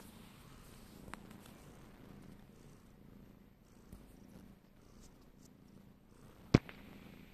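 Tabby-and-white domestic cat purring steadily. A sharp click about six and a half seconds in is the loudest sound, with a fainter click about a second in.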